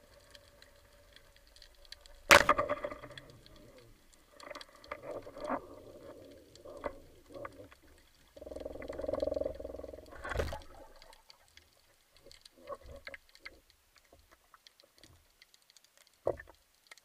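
Underwater shot of a Michelangelo 85 band speargun: one loud sharp crack about two seconds in as the rubber bands release. It is followed by scattered underwater clicks and knocks, a dull rumble lasting about two seconds, and a second sharp knock about ten seconds in.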